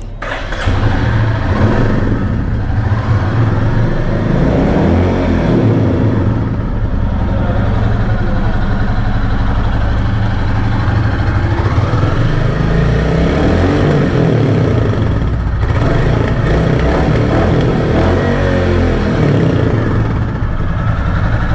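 Royal Enfield Classic 350's single-cylinder engine and exhaust running at idle, revved up and let fall back about three times.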